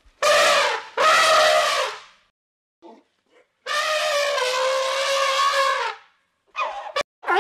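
An animal calling: two calls of about a second each, then one long steady call of about two and a half seconds, followed near the end by short rising cries.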